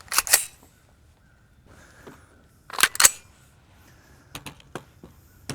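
Two suppressed 5.56 NATO rifle shots, each a sharp report, about two and a half seconds apart.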